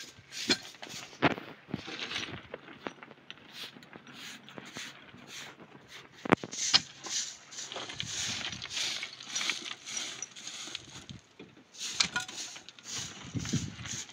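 Scraping and sharp knocks of masonry work on a cinder-block wall being cemented, with one loudest knock about six seconds in.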